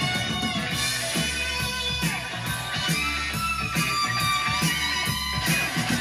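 Guitar music playing back through hi-fi loudspeakers driven by a NAD 304 integrated stereo amplifier, at a steady, fairly loud level.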